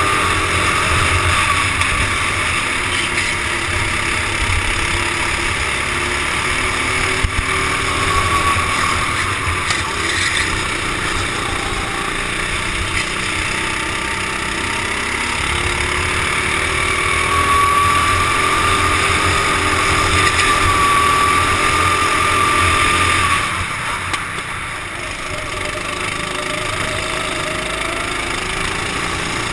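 Racing kart engines running at speed, heard through a helmet-mounted camera: a steady engine note that rises and falls with the throttle through the bends. The level drops for a couple of seconds about three-quarters of the way through as the kart slows, then builds again.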